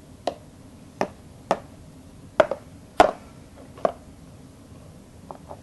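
A cat making short, sharp wheezing sounds, about nine irregularly spaced over five seconds: the wheezing that comes on with food.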